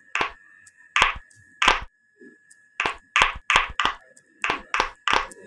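A run of about ten sharp claps at an irregular beat, with a pause of about a second around two seconds in. A faint steady high-pitched tone sounds underneath.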